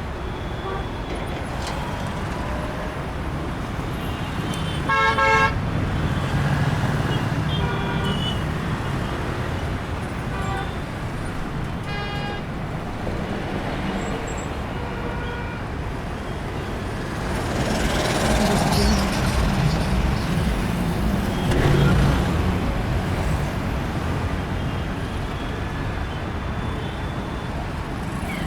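City street traffic: a steady rumble of engines and tyres, with car horns honking several times in the first half, the loudest about five seconds in. Vehicles pass close, louder between about seventeen and twenty-three seconds in.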